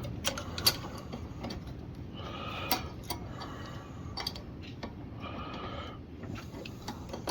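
Light metallic clicks, taps and rattles of small engine parts being handled as a governor linkage is tried on a Mountfield RV150 mower engine that is not running.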